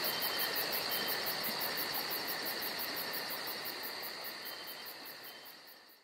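Insect chorus of crickets chirping: a steady high trill with a faster, higher chirp pulsing several times a second. It fades out over the last couple of seconds.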